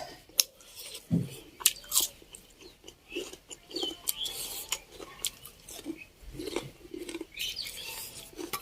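A person chewing and biting food close to the microphone, with many short, sharp mouth clicks.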